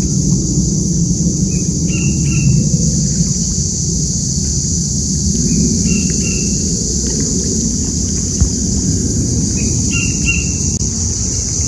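A bird calling in short pairs of chirps, three times about four seconds apart, over a steady high hiss and a low rumble of background noise.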